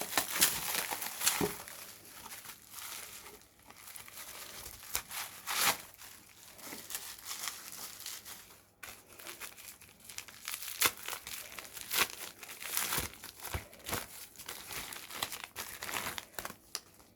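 Plastic packaging crinkling and rustling in irregular bursts as it is handled and unwrapped by hand.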